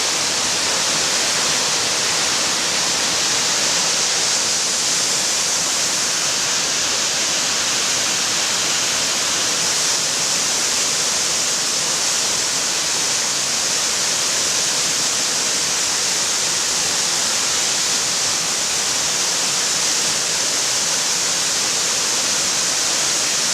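Waterfall pouring steadily: a constant, even rush of falling water with a bright hiss, unchanging throughout.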